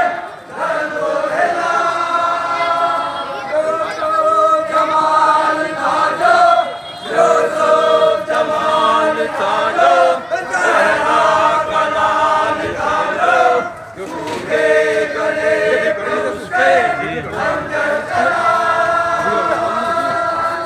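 A group of men chanting a Muharram lament (noha) together in long, drawn-out sung phrases with short breaks between them.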